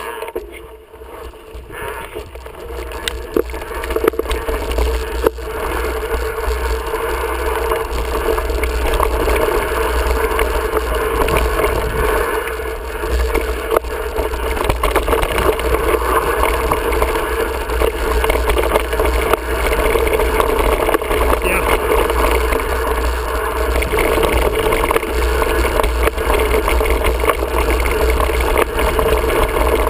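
Mountain bike riding down dirt singletrack: wind buffeting the camera's microphone as a steady rumble, with the hiss of tyres on dirt and scattered knocks from the bike bouncing over rough ground. The noise builds over the first several seconds as speed picks up, then holds.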